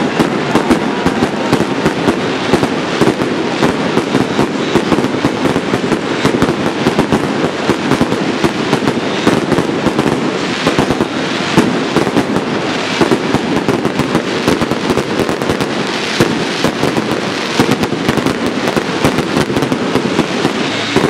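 Fireworks crackling densely: a continuous stream of sharp pops and crackles.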